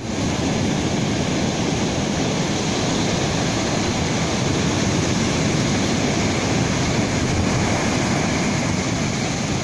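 Stormy ocean surf on a beach: a loud, steady, unbroken rush of breaking waves, heavy in the low end.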